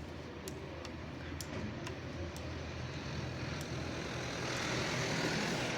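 A vehicle engine running steadily, growing louder about four and a half seconds in, with a few faint ticks.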